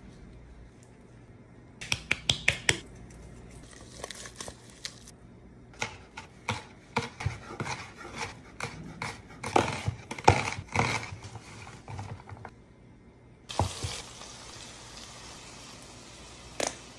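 Kitchen prep sounds: quick knocks and clicks, among them a knife chopping jalapeño peppers on a wooden cutting board. About three-quarters of the way through, a steady sizzle of food frying in a cast iron pan starts suddenly.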